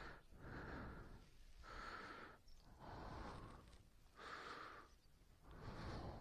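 Faint breathing close to the microphone: five short breaths at an even pace, roughly one a second.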